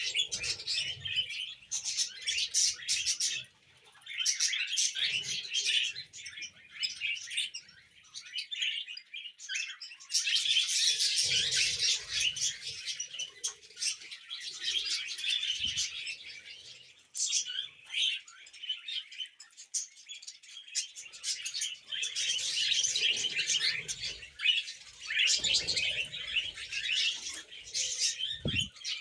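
A flock of pet budgerigars chirping and warbling together in a continuous busy chatter, with a few soft low thumps or flutters now and then.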